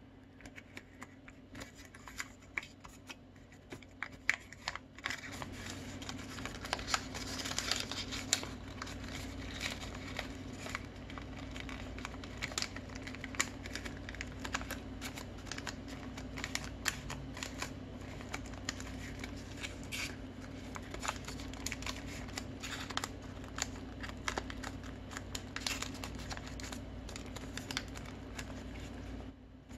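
Colored origami paper being folded and creased by hand: crisp rustling and crinkling with many small irregular clicks and taps, over a steady low hum.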